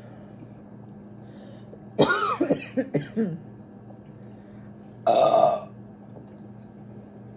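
Two loud burps from chugging carbonated Mountain Dew soda: a long burp with a wavering pitch about two seconds in, and a shorter one about five seconds in.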